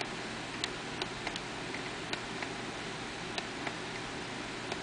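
Light clicks of the FrSky Taranis Plus transmitter's push buttons as its menu pages are stepped through: about ten short presses at uneven intervals, over a steady hiss.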